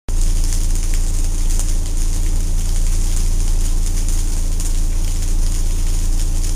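Car engine running, heard from inside the cabin as a steady low rumble with a constant hum.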